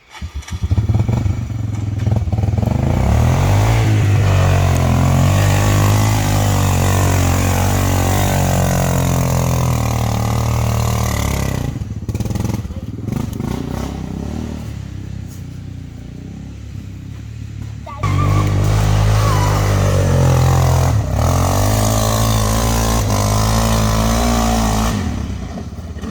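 ATV engine running hard under load on a hill climb, its pitch rising and falling with the throttle. It drops back to a lower, quieter run about twelve seconds in, then is revved hard again suddenly about eighteen seconds in.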